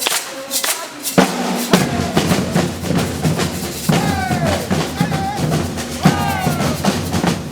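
Brazilian percussion ensemble drumming, with deep bass drums coming in about a second in under the rapid strokes. A falling pitched tone sounds over the drums twice, about halfway through and near the end.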